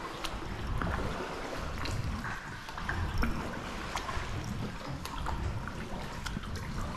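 Kayak paddle strokes in still water: the blades dipping and pulling, with water running and dripping off them in many small, quick drips and splashes.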